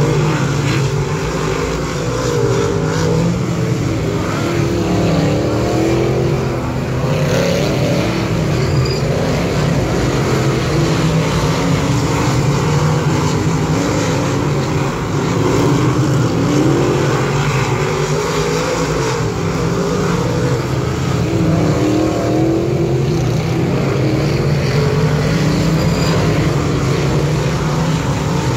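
A field of dirt modified race cars at racing speed, their engines running hard and rising and falling in pitch as they come through the turn and accelerate away.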